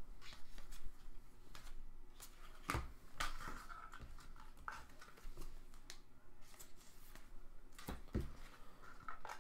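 Trading cards being handled at a table: faint scattered rustles and clicks as cards are slid and flipped, with a stronger knock about three seconds in and another near the end.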